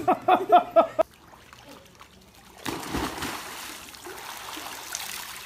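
A cat giving a quick run of short meows that cuts off abruptly about a second in, followed by water splashing and trickling.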